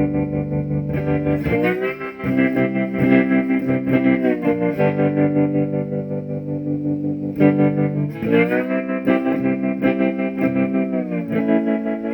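Blues phrases through a 1968 Alamo Paragon amplifier, slightly distorted, with long held notes that bend up into pitch and a wavering loudness from the amp's tremolo.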